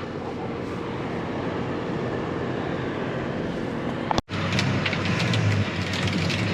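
Heavy farm machinery engine running steadily. About four seconds in the sound drops out for a moment and then comes back louder and deeper, with rattling clicks over it.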